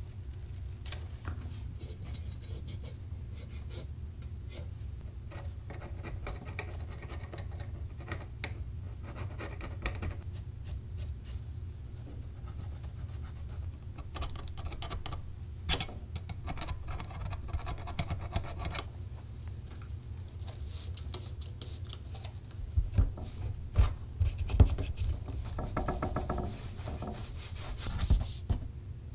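Close scratching and rubbing of hand-cleaning Smith Corona Silent typewriter parts: a microfibre cloth wiping the keys, and a thin metal tool scraping grime off the edge of a felt-lined metal panel. A few louder low knocks come about three-quarters of the way through as the removed panels are handled, over a steady low hum.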